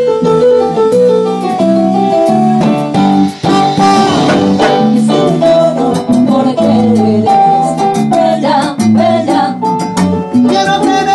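Live Latin band playing an instrumental passage with no lead vocal: bass guitar, keyboard, drum kit and timbales keeping a steady beat under changing chords.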